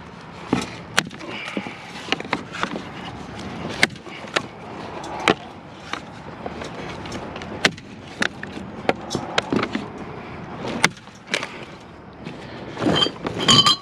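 Irregular metallic clicks, clinks and knocks from hand-dismantling a ceiling fan, its blades being popped off, with a louder burst of clattering near the end.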